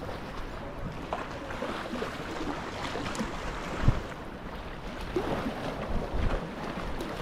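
Sea kayak moving over choppy sea: steady water lapping and splashing around the hull and paddle, with wind on the microphone and a few short low thumps, the strongest about four seconds in.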